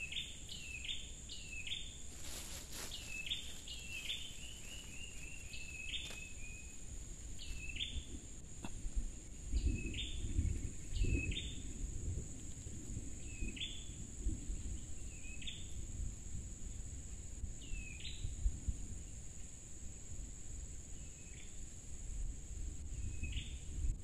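A bird calling over and over: short sharp high notes about every second or two, with a quick run of falling notes about four seconds in. A steady high-pitched drone runs underneath, and a low rumble comes up briefly about ten seconds in.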